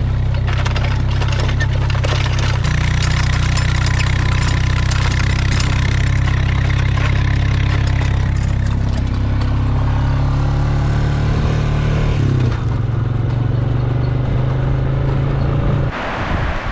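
Farm vehicle engine running steadily while driving across pasture towing a pasture meter, its pitch shifting slightly a couple of times; it cuts off abruptly just before the end, leaving wind noise.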